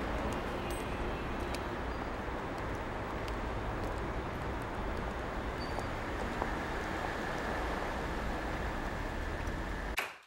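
Steady street traffic noise that cuts off suddenly near the end.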